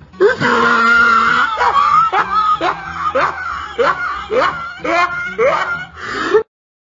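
A high voice screaming: a held, wavering cry, then a string of short rising yelps about two a second, which cuts off sharply near the end.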